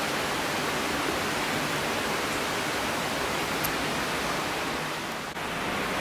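Steady rush of flowing water, an even hiss with no distinct events, that dips briefly about five seconds in.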